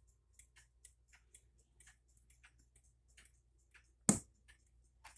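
Howard Miller 620-134 wall clock's Hermle movement ticking at about two ticks a second as the pendulum swings, with one loud knock about four seconds in.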